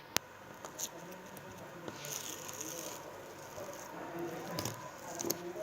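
Slime being squished and worked by hand, giving small sticky clicks and pops, with a sharp click just after the start.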